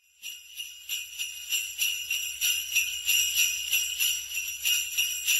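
Jingle bells shaken in a steady rhythm, about three shakes a second, fading in over the first second.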